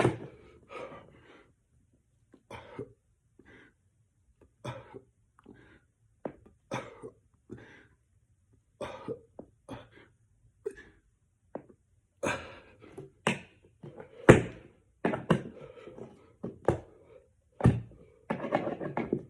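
Heavy, forceful breathing during push-ups: a sharp exhale roughly once a second, getting louder and coming faster in the second half as the effort builds.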